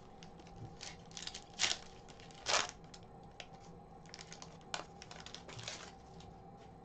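Foil wrapper of an Upper Deck hockey card pack torn open by gloved hands, crinkling and crackling quietly, with two louder rips early on.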